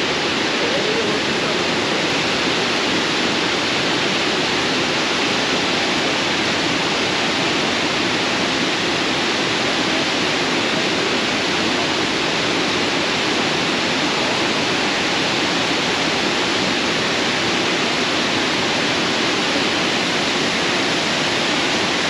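Kravica waterfall's cascades: a steady, unbroken rush of falling water.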